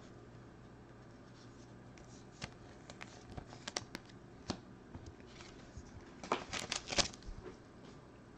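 Hands handling trading cards and foil card packs: scattered light clicks and rustles starting a couple of seconds in, with a denser burst of crinkling about six to seven seconds in.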